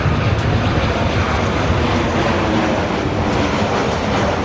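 Boeing 737-700 airliner flying low overhead on approach with its gear down, its CFM56 turbofan engines making a steady, deep jet noise.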